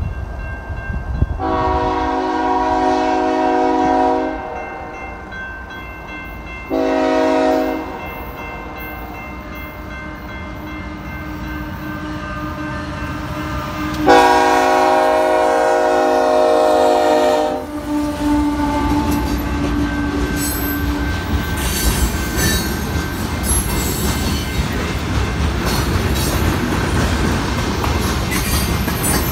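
A BNSF GE ES44AC locomotive's Nathan K5HL five-chime air horn sounds the grade-crossing signal: a long blast, a short one, then another long one held as the locomotive reaches the crossing. After that the diesel locomotive and the freight cars rumble past with steady wheel clatter on the rails.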